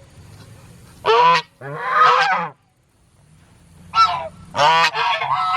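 Geese honking loudly, close by: a few separate calls, then a quicker run of honks near the end.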